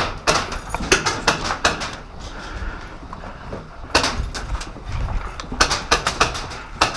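A run of sharp, irregular clicks and knocks in clusters, with a short pause in the middle.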